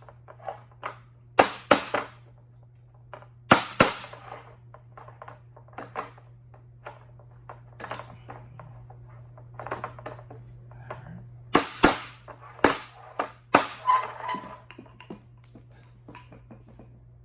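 Parts of a long-handled-tool storage rack being fitted together quickly by hand: sharp knocks and clacks in bursts, the loudest clusters near the start and again in the last few seconds, with softer rattles and taps between.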